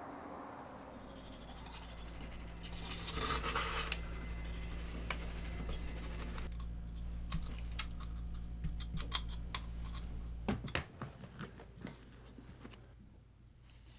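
A toothbrush scrubbing teeth in quick, scratchy strokes over a steady low hum, which stops about ten and a half seconds in. A short burst of hiss comes about three seconds in.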